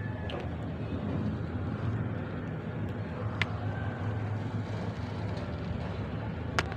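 A steady low engine-like rumble, with two sharp clicks: one about halfway through and a louder one near the end.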